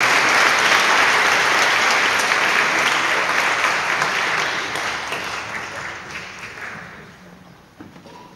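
Audience applauding, loud at first, then thinning and dying away over the last few seconds.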